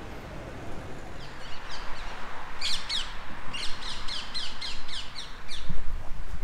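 A songbird singing a quick run of high, down-slurred notes, strongest from about two and a half to five and a half seconds in, over steady faint background noise.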